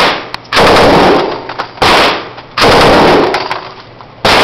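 M249 SAW light machine gun firing 5.56 mm rounds in short automatic bursts, about four in a row, each under a second long and each followed by a fading echo. The recording is overloaded.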